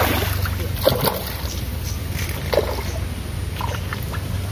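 Water splashing and sloshing in a few short irregular bursts as a pacu (bawal) thrashes at the surface of a fishing pond, over a steady low rumble of wind on the microphone.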